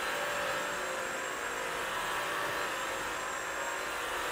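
Bissell Crosswave Pet Pro wet/dry floor cleaner running steadily as it is pushed over a hardwood floor on its hardwood-floor washing setting: an even motor and brush-roll noise with a thin high whine.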